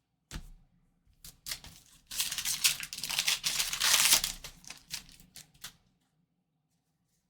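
Foil wrapper of a trading card pack being torn open and crinkled: a sharp snap at the start, a few crackles, then a dense run of crinkling that thins out about six seconds in.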